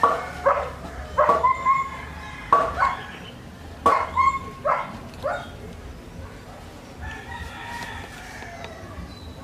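A rooster crowing about seven seconds in, after a run of louder short, sharp animal calls, about a dozen of them, in the first five seconds.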